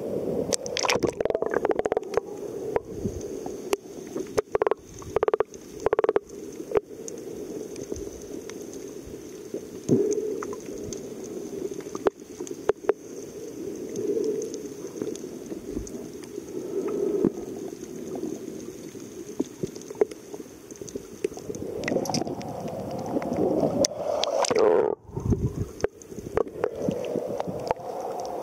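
Sea water sloshing and gurgling around a camera held at the surface, with irregular splashes and knocks, and a muffled sound while the camera is under water.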